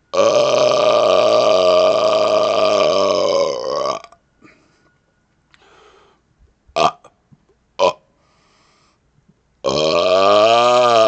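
A man burping on purpose: one long burp of about four seconds, then a lull broken by two short sharp sounds, then another long burp starting near the end.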